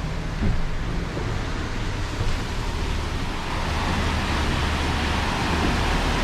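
Wind and rushing sea water around a sailing catamaran in winds of about 30 knots, a steady rush with a low hum beneath it. The rush grows a little louder about halfway through.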